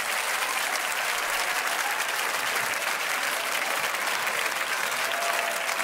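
Large audience clapping steadily.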